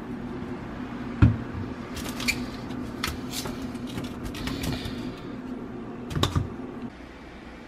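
Fruit handled in a wicker basket on a stone counter: light knocks and rustles as an apple and bananas are picked out and a banana is pulled off the bunch, with a sharp knock about a second in and a short clatter near six seconds. A steady low hum runs underneath and stops near the end.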